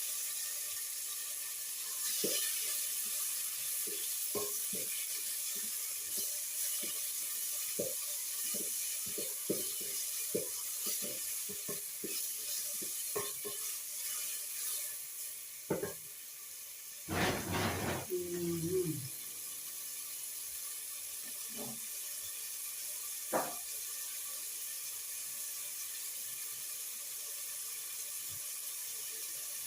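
Food sizzling in a cooking pot, a steady hiss, with a run of light knocks and scrapes of a spoon stirring against the pot through the first half. There is a louder clatter about 17 seconds in, and a few more knocks near the end.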